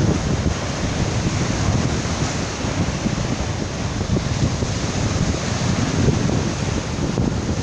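Storm wind buffeting the microphone with a low rumble, over the steady wash of wind-driven waves on a large reservoir.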